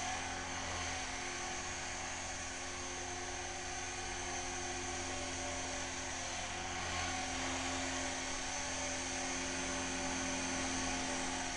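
Align T-Rex 450 V2 electric radio-controlled helicopter in flight: the steady high whine of its electric motor and gears together with the whir of the rotor blades, growing a little louder about seven seconds in.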